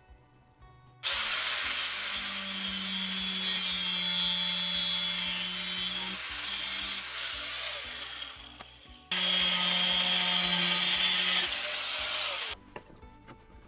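Angle grinder with a cut-off disc cutting through a stainless steel rod held in a vise, making a loud, harsh grinding with the motor's steady hum underneath. There are two cuts: the first starts about a second in and tails off as the disc winds down, and the second starts sharply past the middle and stops suddenly near the end.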